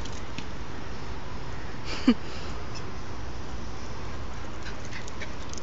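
A small dog gives one short yelp that falls in pitch, about two seconds in, over steady background noise.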